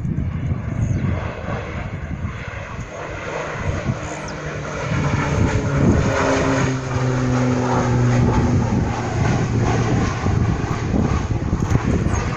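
Piston engine and propeller of a low-flying crop-spraying airplane passing by. The drone gets louder about five seconds in and drops in pitch as the plane goes past.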